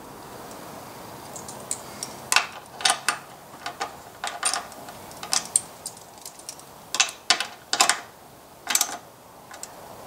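Metal wrench clicking and clinking against a steel power steering line fitting as the fitting is snugged up on the gearbox: a dozen or so sharp, irregular clinks, the loudest a couple of seconds in and again about seven to eight seconds in.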